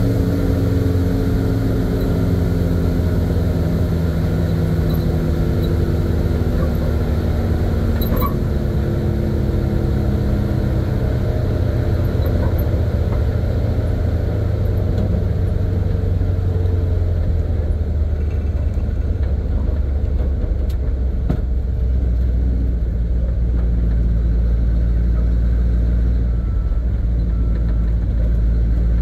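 1970 Chevy C50 dump truck engine running, heard from inside the cab. The engine note falls in pitch over the first ten seconds or so as the truck slows, then settles into a low steady rumble.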